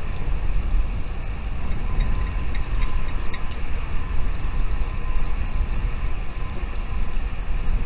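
Wind buffeting the microphone in an uneven low rumble, with a few faint, short, high chirps from nestlings about two to three seconds in.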